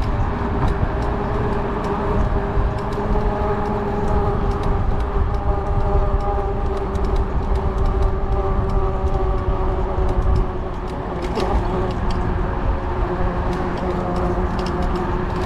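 Electric motor of a fat-tire e-bike conversion kit whining at a nearly steady pitch while giving pedal assist, with wind rumbling on the microphone.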